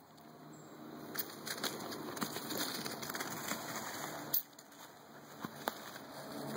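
Footsteps crunching and rustling through dry fallen leaves, with many small crackles. They pause for about a second just past the middle, then start again.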